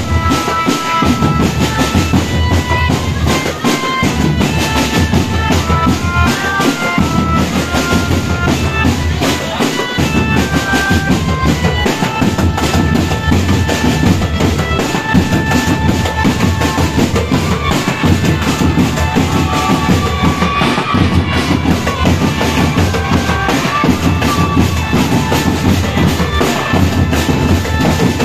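Marching drum band playing: snare and bass drums beat steadily under a stepping melody of held notes.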